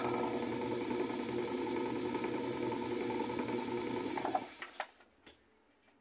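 General Electric washing machine's motor, belt and transmission running in spin mode, with a steady mechanical hum of several tones. It stops about four and a half seconds in, and a couple of faint clicks follow.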